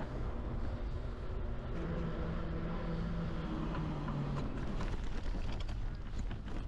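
Steady rumble of wind and tyre noise from a bicycle ride. A steady hum runs for a couple of seconds and drops slightly in pitch near its end. Scattered clicks and crunches follow in the last seconds.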